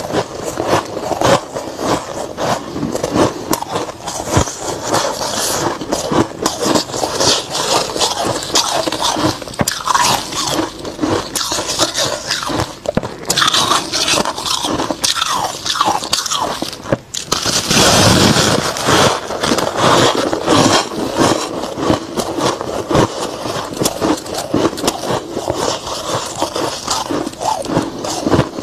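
Soft freezer frost crunching as it is bitten and chewed: a dense, unbroken run of crunches, loudest about 18 seconds in after a brief pause.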